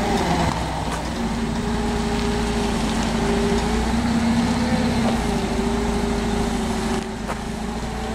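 Forklift engine running steadily, its pitch shifting slightly as the lift is worked.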